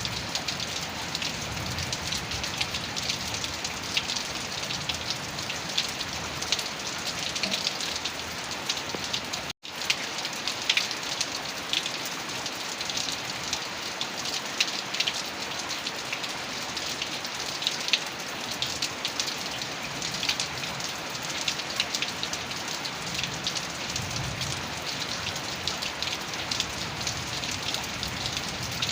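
Heavy rain falling steadily, a dense hiss full of sharp individual drop patters. It cuts out for a split second about ten seconds in.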